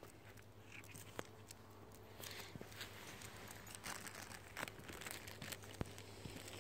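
Faint rustling and scattered sharp clicks of a handheld phone being jostled and handled while walking, over a low steady hum.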